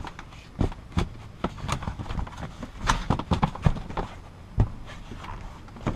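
Irregular knocks and clicks of a folding kayak's frame parts being handled, as a frame rib is worked into position in the frame. The knocks come in an uneven string, several bunched together around the middle.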